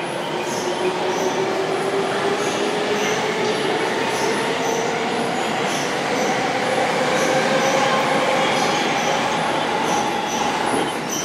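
Saikyō Line electric commuter train pulling out and accelerating past the platform. The whine of its traction motors rises slowly in pitch over the running noise, with a regular high ticking.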